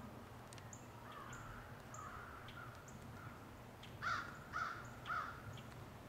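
Crows cawing: a run of fainter calls, then three loud, harsh caws about half a second apart near the end.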